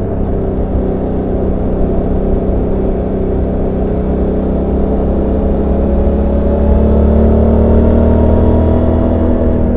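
Suzuki GSX-8S motorcycle's 776 cc parallel-twin engine and exhaust running under way, heard from on board. The engine note holds steady, then rises gently in pitch through the second half as the bike accelerates.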